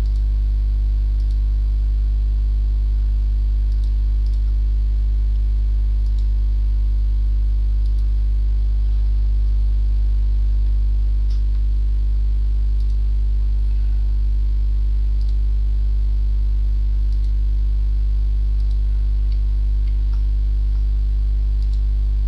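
Steady electrical mains hum, low and constant at about 50 Hz with its overtones, from the recording chain, with a few faint clicks scattered through it.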